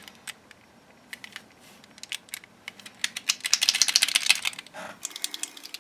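Quick scratchy strokes of hand-sanding a carved lure body with a folded sanding disc, with scattered light clicks from handling. The strokes come thick and fast from about three seconds in for a second and a half, the loudest part.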